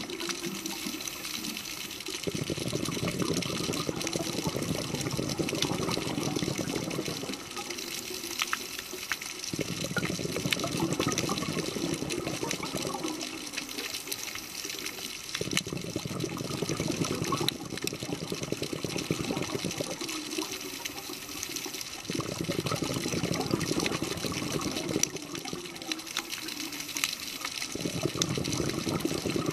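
Scuba diver breathing through a regulator underwater: a brief hiss as each breath is drawn, then a longer bubbling rush of exhaled air, repeating about every six seconds, five breaths in all.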